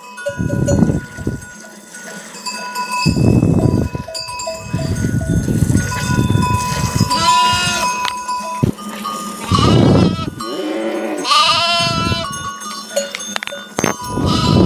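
A flock of sheep and goats, their neck bells ringing and clanking throughout. Two bleats come about halfway through and again near three-quarters, over rustling and shuffling from the animals.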